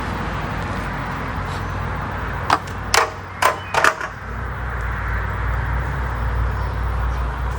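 Four sharp clacks, about half a second apart, over a steady outdoor hiss, then a low rumble that sets in just after them.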